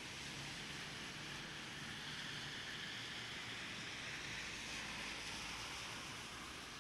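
Steady rain hiss over a wet city street, with a vehicle passing on the wet road: the tyre hiss swells in the middle and eases off near the end.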